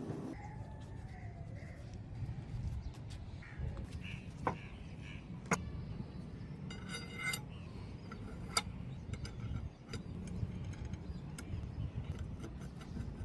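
Small metal parts clicking and clinking as they are fitted together, with a few sharp clicks and one brief ringing metallic note about seven seconds in, over a steady low hum.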